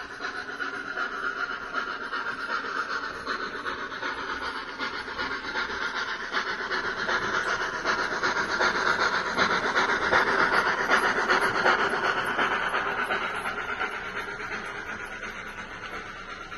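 Model railway train passing: a sound-fitted model streamlined A4 steam locomotive chuffing with a steam hiss, along with the rumble of coach wheels on the track. It grows louder to a peak about two-thirds through, then fades as the train moves away.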